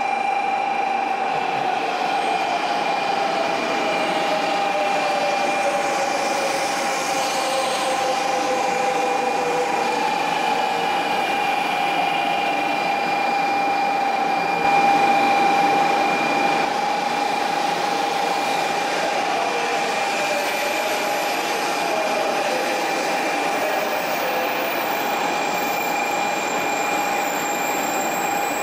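JR West 500 Series Shinkansen running slowly along a station platform as it pulls in and slows to a stop: a steady rolling and air rush under two steady whining tones, with a whine that falls in pitch over the first several seconds as it slows.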